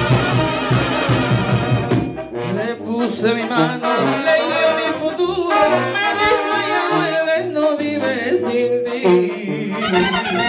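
Live Mexican banda playing: trumpets, trombones and clarinets over drums. About two seconds in, the drums drop out, leaving the horns on their own. The full band with drums comes back in near the end.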